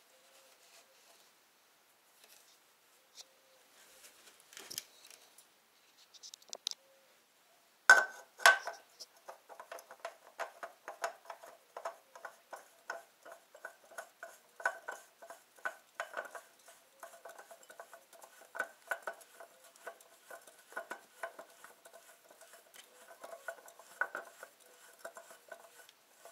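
Spin-on oil filter on a Seat 1.6 MPI engine being twisted by hand: a sharp metallic click about eight seconds in, then a steady run of quick metallic ticks, each with a brief ring.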